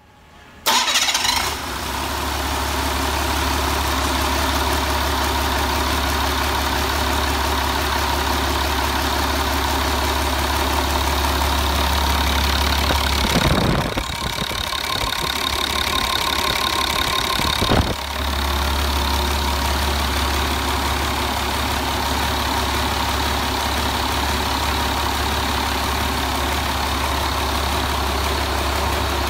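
Caterpillar 3126 inline-six diesel engine on a test stand, firing up about a second in and settling into a steady idle. For a few seconds past the middle the sound turns noisier and rougher, ending in a sharp knock, before the even idle returns.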